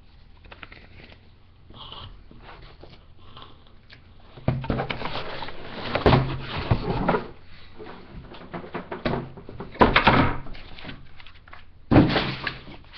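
Cardboard box and packing material being handled and pulled apart: rustling and scraping, loudest in bursts from about four and a half to seven seconds in, around ten seconds, and near the end.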